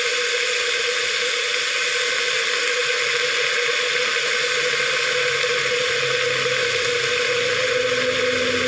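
Chaya (Mexican tree spinach) greens sizzling in hot oil in a wok. A loud, steady hiss that does not change.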